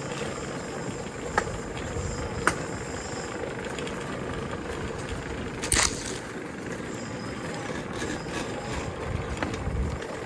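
Small electric scooter running over paving stones: a steady motor hum over tyre rumble, with a few sharp clicks, the loudest about six seconds in.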